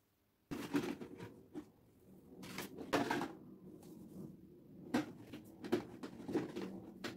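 Hands handling a cardboard box and a plastic IPL hair-removal handset: a string of light knocks, taps and rubbing as the handset is lifted and set back into the box's insert, over a steady low hum.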